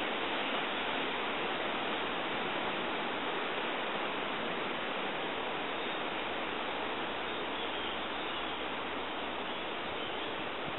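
Steady rushing of wind through oak foliage, an even noise with no bird calls standing out.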